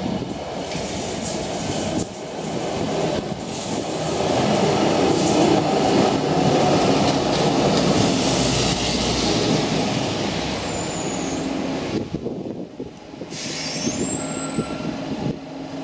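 SL79 articulated tram climbing uphill and passing close by, its wheels rumbling and rolling on the rails. The sound builds to its loudest around the middle and then fades as the tram pulls away toward the stop. A couple of brief high squeals come near the end.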